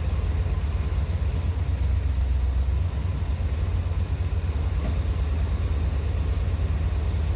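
1981 Corvette's carbureted 350 V8 idling steadily at operating temperature while its idle mixture is being adjusted; the mixture is running too rich.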